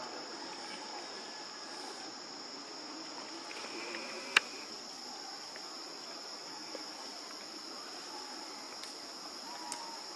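Steady, high-pitched drone of an insect chorus that holds without a break. A single sharp click, the loudest thing, sounds once about four and a half seconds in.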